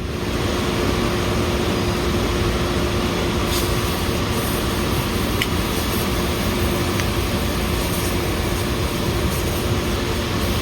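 A steady rush of blowing air with a constant low hum underneath, starting abruptly and holding level throughout.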